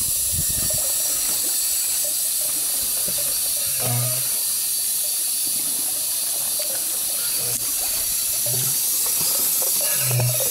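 Steady hissing and churning of water in the tank of a KPP Rosch-style buoyancy unit, with air bubbling up through the water.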